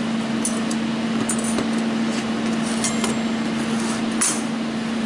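Thin laser-cut steel kit pieces clicking and clinking lightly as they are handled and set down on a workbench, a few separate light knocks spread through the seconds, over a steady background hum.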